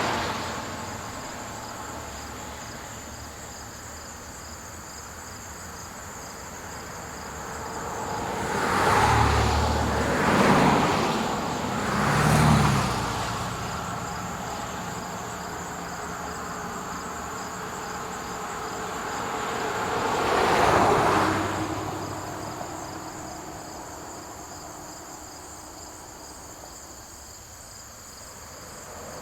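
Vehicles passing on a road one after another, each a swelling then fading whoosh of tyres and engine. One fades out just after the start, three pass in quick succession about nine to thirteen seconds in, and another passes about twenty-one seconds in. Insects, crickets among them, chirr steadily throughout.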